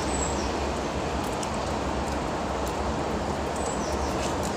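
Tap water running steadily in an even hiss.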